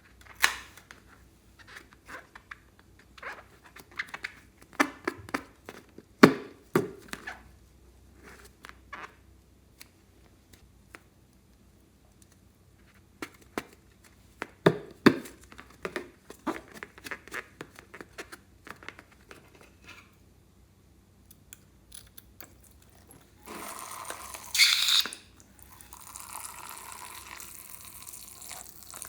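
Slime being squished and worked by hand: scattered sticky clicks, pops and crackles, then a louder hissing rush near the end.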